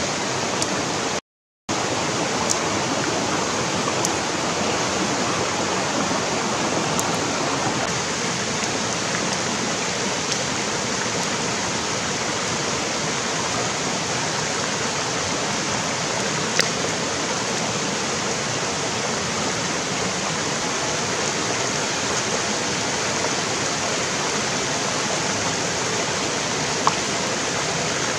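Shallow rocky stream rushing over stones, a steady even hiss of running water, with a few faint clicks. The sound cuts out completely for a moment about a second in.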